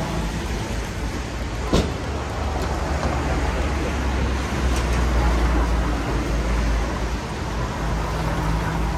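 City street traffic noise: a steady wash with a low rumble, and one sharp knock about two seconds in.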